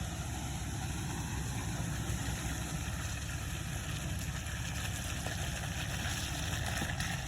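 Jeep TJ engine running steadily at low revs, a continuous low rumble.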